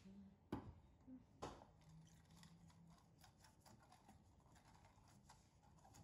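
Two sharp knocks, then a pastry brush greasing a metal bundt cake pan in many faint, quick scratchy strokes.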